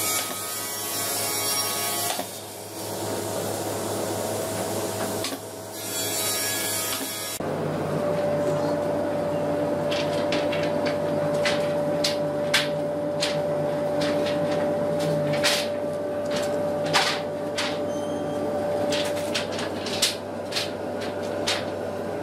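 Woodworking-shop sounds: about seven seconds of loud rushing noise that drops away twice, then a steady hum with scattered sharp wooden knocks and taps as wooden table legs are set onto a wooden top.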